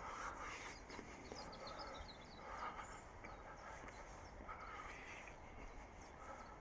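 Faint outdoor background with small birds chirping, a cluster of quick high chirps a couple of seconds in.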